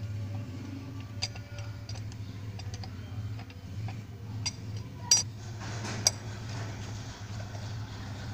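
Metal clicks and clinks as the cap and die are fitted and screwed onto a hand-cranked cast-metal noodle press, with two sharper clinks about five and six seconds in, over a low steady hum.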